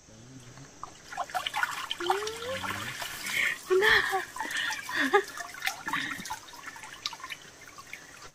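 Water sloshing and trickling, with irregular knocks and rattles, as a fish trap is lifted out of a shallow stream; the sound starts about a second in and is busiest around the middle.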